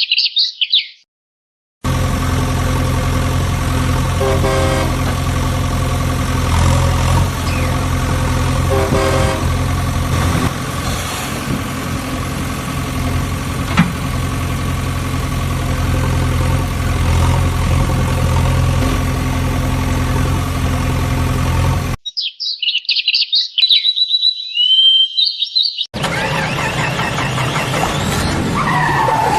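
A steady, even engine drone running for most of the stretch, with short bursts of bird chirping before it starts and again about 22 seconds in, and a different vehicle sound with sliding pitch near the end.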